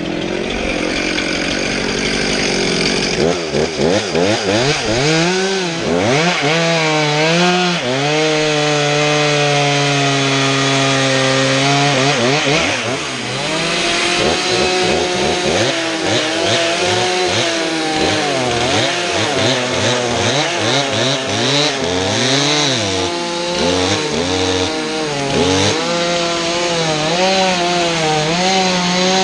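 Stihl chainsaw running hard, its engine pitch rising and falling as it revs and loads in the cut. It holds one high, even pitch for several seconds near the middle before dropping back.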